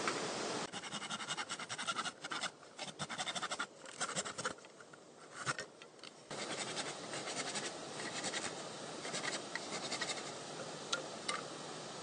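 Hand pruning saw rasping through bamboo in quick back-and-forth strokes, easing off about halfway through before carrying on, over a steady rushing background noise.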